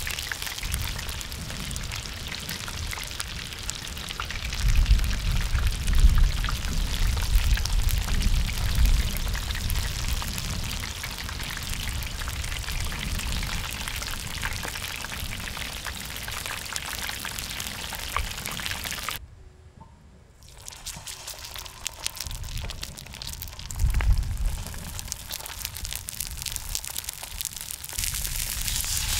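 Battered rings and pieces deep-frying in oil in a wide cast-iron cauldron lid: a steady crackling sizzle like rain, with a few low rumbles. It cuts off abruptly about two-thirds through, then a quieter crackle resumes.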